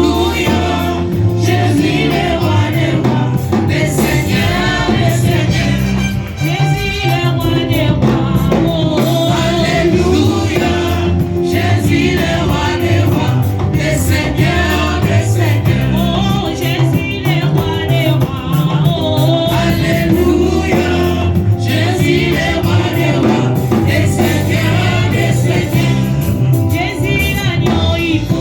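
Gospel worship music: a group of singers singing with loud, continuous instrumental accompaniment.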